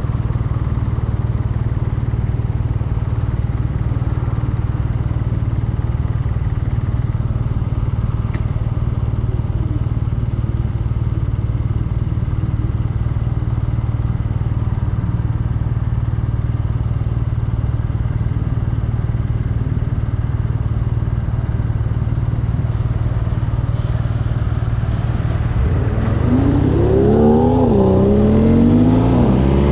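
BMW R nineT Urban G/S's air/oil-cooled boxer twin running under way, with a steady low rumble of wind buffeting the microphone. About four seconds before the end the engine note climbs, drops back at a gear change, and climbs again as the bike accelerates.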